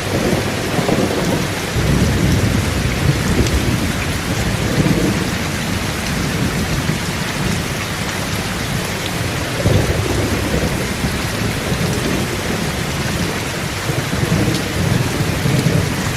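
Heavy rain falling steadily, with low rumbles swelling and fading three times.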